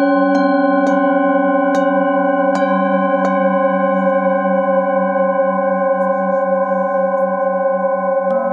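Metal singing bowls struck one after another with a wooden mallet, five strikes in the first three and a half seconds, their overlapping tones then ringing on steadily with a slow wavering, and one more strike just before the end.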